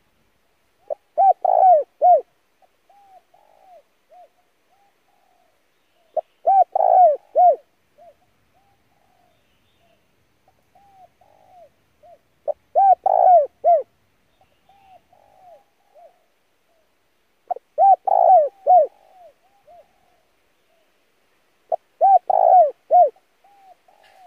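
Spotted dove cooing, five phrases spaced about five seconds apart, each a few loud, hollow coos followed by softer trailing notes.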